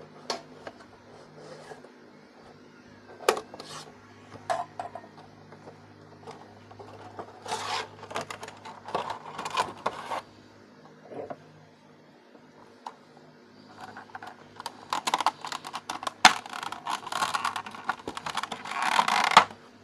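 Cardboard Funko Pop box being opened with a ruler: scrapes, clicks and rustling of cardboard and plastic packaging, in two longer bursts with quieter handling between. A faint steady hum runs underneath.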